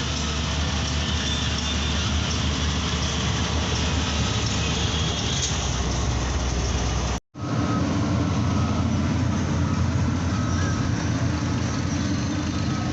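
Heavy vehicle engines running steadily with a continuous mechanical rumble. There is a sudden break about seven seconds in, after which a deeper, louder engine rumble takes over.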